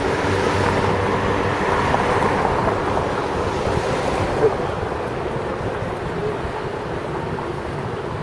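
Wind rushing over a microphone moving along a city street, loudest in the first few seconds and then easing off, with street traffic underneath. A single sharp knock about four and a half seconds in.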